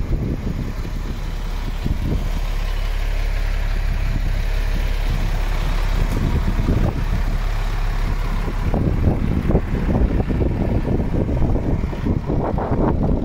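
MAN TGS 18.400 truck's six-cylinder diesel engine idling steadily, with wind buffeting the microphone.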